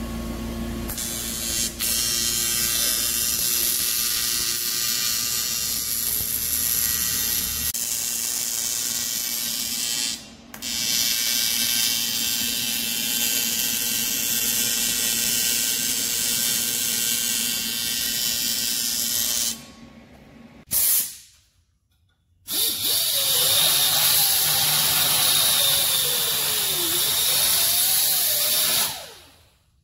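TIG welder buzzing and hissing steadily while sheet-metal intake pieces are welded, broken off twice by short gaps.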